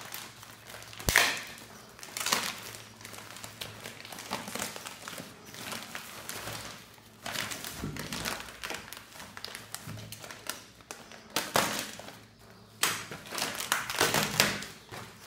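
Plastic courier mailer and bubble wrap rustling and crinkling as a parcel is pulled out and handled by hand, with irregular knocks and taps on the desk. A sharp click about a second in is the loudest sound.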